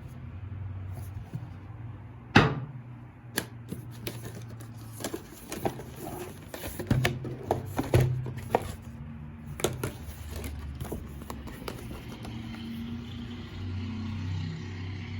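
Hands handling a boxed keyboard and its packaging during unboxing: irregular clicks and knocks, the sharpest about two and a half seconds in and a busier run of them around the middle, over a low steady hum.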